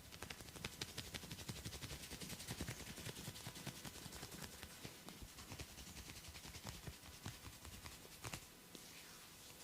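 Rapid percussive massage strokes: hands tapping quickly on skin, several taps a second, with one sharper slap near the end.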